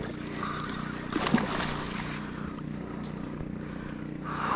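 A hooked doncella catfish splashing at the water surface while it is played on rod and line, with a burst of splashing about a second in. A steady low motor hum runs underneath.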